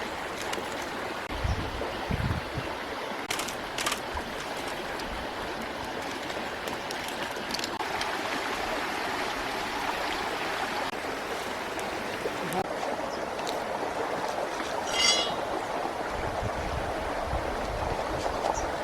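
Steady rush of running water, like a small stream, with a few light clicks and a brief high chirp about fifteen seconds in.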